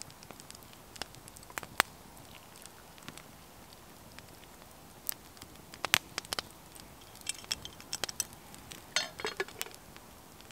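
Wood campfire crackling with scattered sharp pops, along with a few light clinks of a metal kettle and cup being handled; the pops and clinks bunch together near the end.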